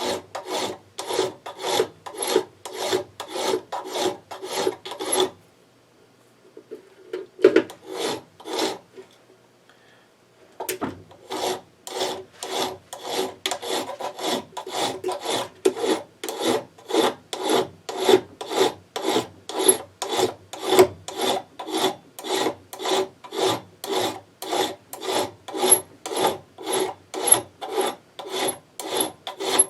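Chainsaw file rasping back and forth on an aluminium air-compressor pump fitting, at about two to three strokes a second. The filing stops for a few seconds about five seconds in, with a few strokes in the middle of the pause, then picks up again at a steady pace.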